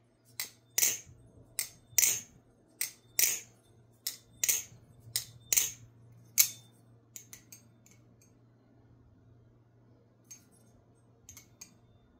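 Titanium balisong (butterfly knife) being flipped: its handles clack sharply against each other and the tang, about ten crisp clacks in the first six seconds, then a few softer taps near the end.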